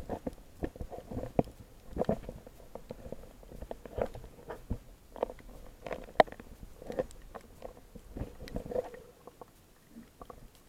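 Muffled underwater gurgling and sloshing, with irregular clicks and knocks, picked up by a camera held underwater as it is moved through the water. The sound thins out near the end.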